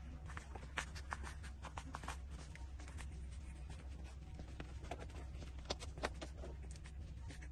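Puppy suckling at its mother's teat: irregular small wet clicks and smacks, a few sharper ones, over a steady low hum.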